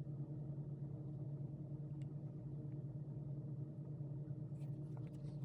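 Steady low hum of room background, with a few faint light clicks.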